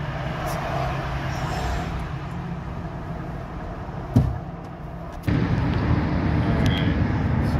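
Vehicle engine rumbling low and steady, a sharp click about four seconds in, then a louder, rougher run that starts abruptly just past five seconds in.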